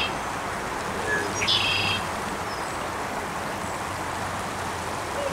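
Steady hiss of flowing creek water, with a songbird giving one short, buzzy trilled song about a second in.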